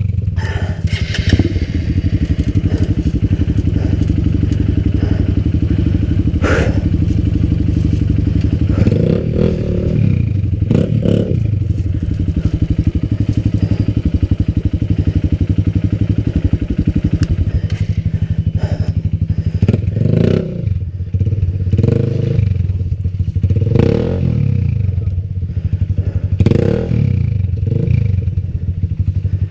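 Enduro dirt bike engine running at low revs on rough, rocky trail, with short throttle blips that raise the revs several times, mostly in the second half, along with clattering and knocks as the bike goes over rocks.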